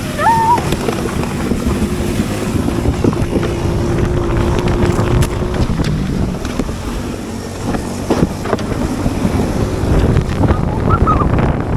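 Small engine running under load with wind buffeting the microphone, as a sled is towed behind it.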